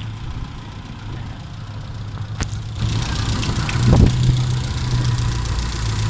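Toyota 4K four-cylinder engine idling steadily, getting louder about three seconds in, with a sharp click shortly before and a thump about a second later.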